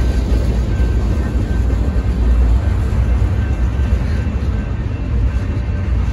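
Freight train cars rolling past at close range: a steady, loud low rumble of steel wheels on the rails and the cars' running gear.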